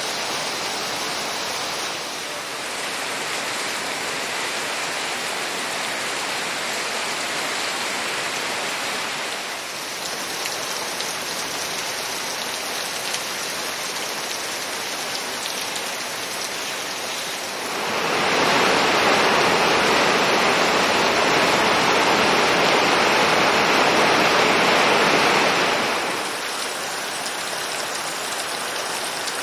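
Rain falling steadily, an even hiss that gets clearly louder for several seconds about two-thirds of the way through, then drops back.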